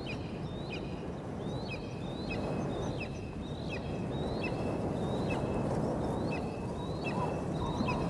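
Juvenile black eagle begging for food with short, high chirping calls repeated over and over, roughly one or two a second, over a steady low rushing noise.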